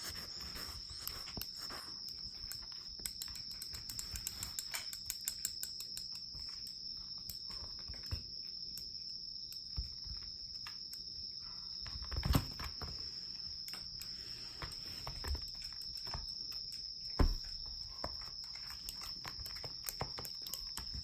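A steady high-pitched tone throughout, with many light ticks and clicks, and two louder thumps about twelve and seventeen seconds in.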